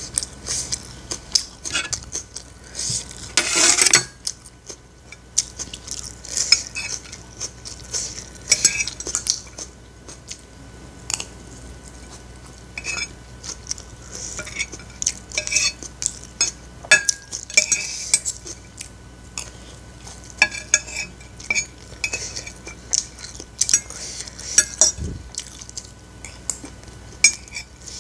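Metal spoon and fork scraping and clinking on a plate, gathering up the last grains of fried rice: many short scrapes and clinks, with one longer, louder burst about three to four seconds in.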